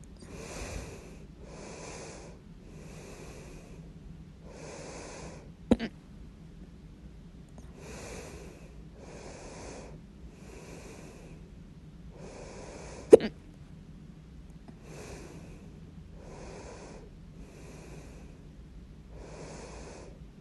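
A person hiccuping loudly twice, about seven seconds apart, each hiccup a single sharp, short catch. Between them there is steady breathing, a breath about every second.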